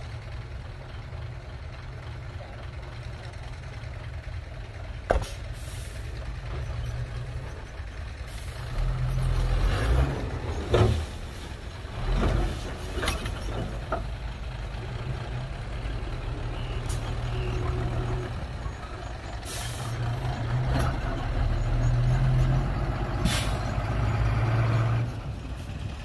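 Heavy dump truck's diesel engine running, working harder at times, with several short air-brake hisses.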